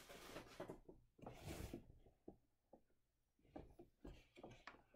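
Faint rustling of a plastic bag being handled, then a few light knocks and taps of items being moved on a table.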